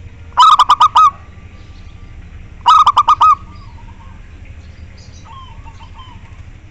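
Zebra dove (perkutut) calling: two loud runs of about five quick cooing notes each, the second about two seconds after the first. Faint chirping goes on in between.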